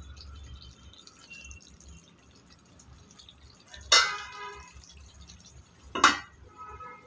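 Two ringing metallic clinks about two seconds apart, of cookware being struck, over a faint low background.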